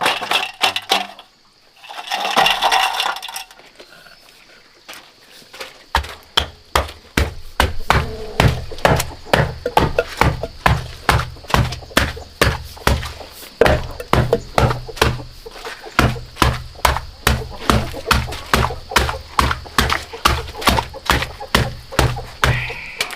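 A steady series of hard blows, each a sharp knock with a low thud, about two a second, starting about six seconds in.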